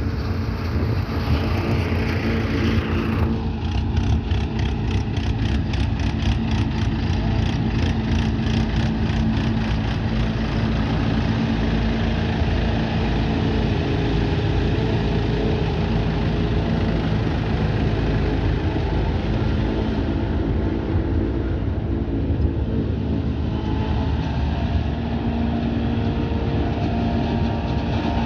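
Engine of grass-harvesting farm machinery running steadily, with a rapid regular clicking of about three or four a second for several seconds near the start.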